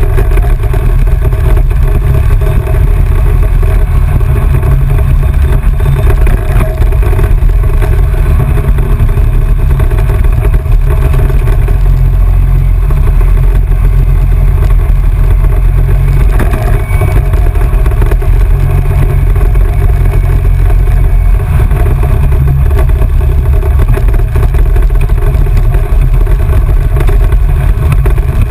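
ATV engine running steadily while riding a dirt trail, heard from a camera mounted on the machine, with a heavy low rumble and no break.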